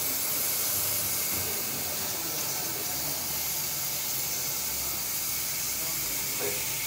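Steady hiss of a compressed-air paint spray gun.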